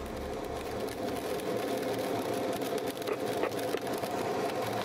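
Steady rush of airflow and rain on the canopy inside a glider's cockpit in flight through a thunderstorm, with a continuous buzzing hum under it.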